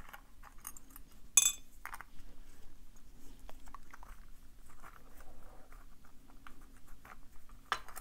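Hex key turning the small screws in the metal bottom cap of an OnGuard Beast padlock: faint, scattered metallic ticks and scrapes, with a sharper clink about a second and a half in and another near the end.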